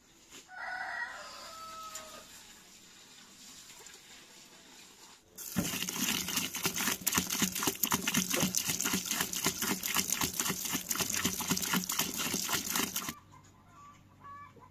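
A steady stream of water is poured onto a large pot heaped with rose petals, splashing loudly for about seven and a half seconds from about five and a half seconds in: the pot being filled to distil rose water. A rooster crows once near the start, and chickens cluck faintly near the end.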